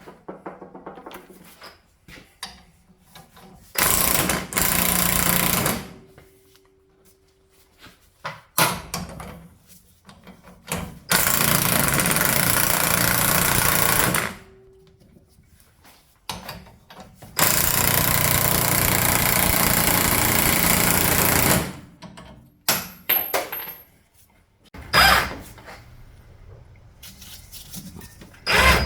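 Impact wrench running in three bursts of a few seconds each on the 15 mm top nut of a front strut, with clanks of tools and parts between.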